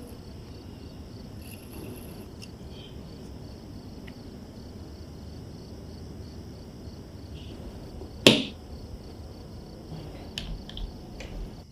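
A steady, high-pitched chirring made of rapid, even pulses, like crickets. One sharp, loud click comes about eight seconds in, and a few lighter clicks follow near the end.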